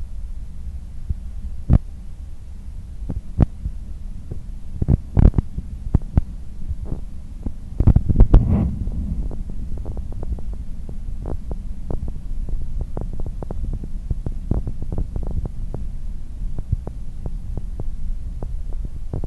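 Korail passenger train running at speed on the Jungang Line, a steady low rumble with sharp clicks and clatter of the wheels over the track. A loud clattering burst comes about five seconds in and another around eight seconds. After that the clicks come several times a second in an even rhythm.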